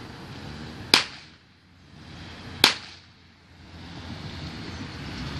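Two gunshots about 1.7 seconds apart, each a sharp crack with a short fading tail, fired as the gunfire test of a dog's ZTP breed-suitability assessment.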